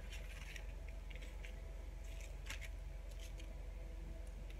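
Hands rubbing a dry seasoning rub into a raw whole chicken on parchment paper: faint, irregular rustling and crinkling of the paper with soft squishes, over a steady low hum.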